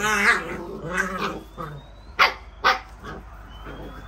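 Puppies yelping and whining in play: a wavering whine at the start, another call about a second in, then two short, sharp yips a little over two seconds in.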